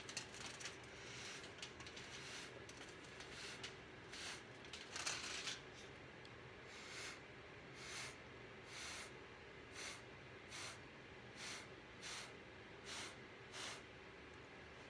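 Faint, short puffs of breath blown through a drinking straw onto wet acrylic paint, coming irregularly at first and then about once a second.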